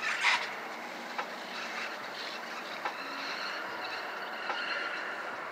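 Steady noise inside a Volvo's cabin as the car rolls slowly, with a sharp knock just after the start and a few faint clicks.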